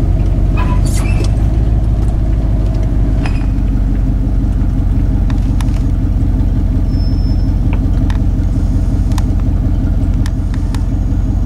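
Pickup truck engine running steadily, heard from inside the cab as a low, even hum, with a few light clicks.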